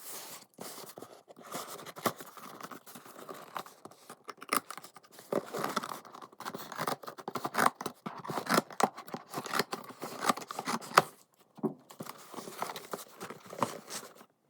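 Cardboard shipping box being opened by hand: packing tape cut and torn, with flaps and packaging scraping and rustling in an irregular run of sharp clicks and scrapes.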